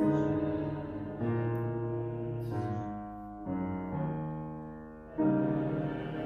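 Piano playing slow sustained chords, about five in all, each struck and left to ring and fade before the next.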